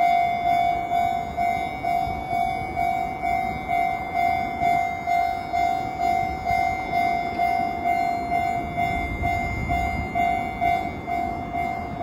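Japanese railway level-crossing alarm ringing its electronic warning tone, an even repeating ding about twice a second, sounding for an approaching train.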